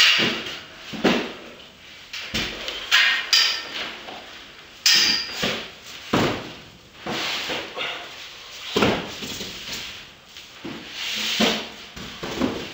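White foam boxes being handled and stacked by hand from steel pallet racking: irregular knocks, bumps and scrapes about every second, with rubbing and squeaking as the boxes slide against each other.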